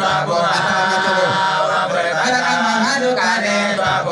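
A man chanting a melodic praise chant in long held, sliding notes into a handheld microphone, amplified.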